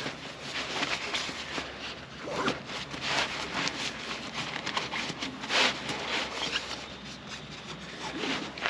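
Waterproof fabric compression sack being handled and its straps worked, making irregular rustles and swishes, the loudest a little past halfway.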